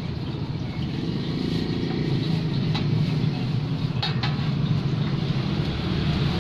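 Martabak telur frying on a flat pan: oil sizzling, with a few sharp clinks of metal spatulas against the pan about three and four seconds in. A steady low engine-like hum runs underneath.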